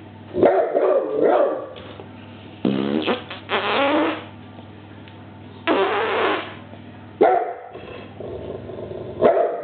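A dog barking and growling in repeated angry outbursts, about six in all, mixed with fart sounds that it is reacting to.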